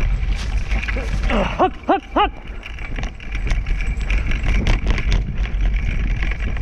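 Dog scooter pulled by two greyster sled dogs, rolling fast over a bumpy dirt woodland trail: a steady rumble of wheels and wind with knocks and rattles over the bumps. Three short squeaks in quick succession come about one and a half to two and a half seconds in.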